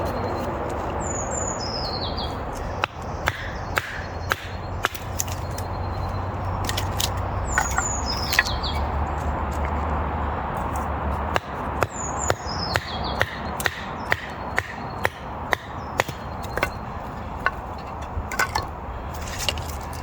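Wood being split by batoning a knife through it: sharp knocks, irregular and at times one or two a second, busiest in the second half. A songbird repeats a short song of notes running down in pitch several times.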